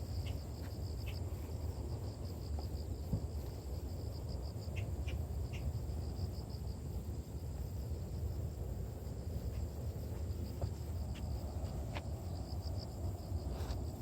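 Crickets chirping in a rapid, steady pulsing trill, over a low rumble of wind on the microphone, with a few short high chirps scattered through.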